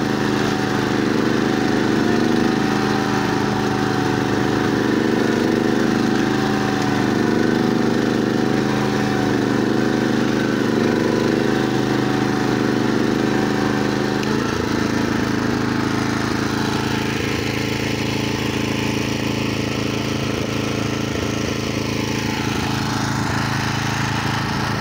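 Single-cylinder Honda GX340 engine of a Bertolini 413S walking tractor running steadily under load, driving a hammer flail mower through dry grass and weeds. About halfway through, the dense churning sound of the flail gives way to a steadier, slightly quieter engine note.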